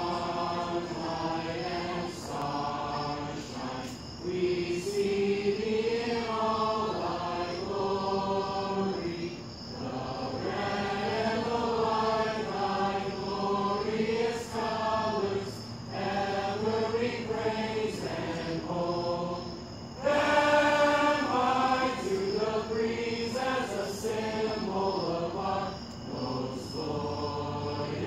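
A marching band's members singing together as a choir, holding long notes in phrases with short breaks between them; one phrase about two-thirds of the way through is louder.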